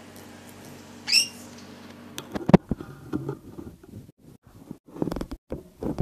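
A pet lory gives one short, shrill, wavering call about a second in. Then comes a run of sharp clicks and knocks, the loudest about halfway through, from the wire cage and its perches and toys being knocked.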